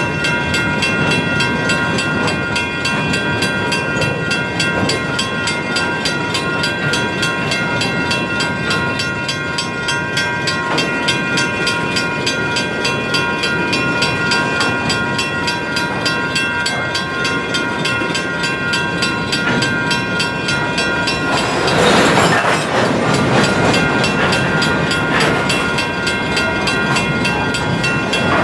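Side-dump ballast gondola cars rolling slowly past on steel wheels, with a continuous rumble and clicks over the rail, and a steady high squeal throughout. A louder rush of noise swells briefly near the end.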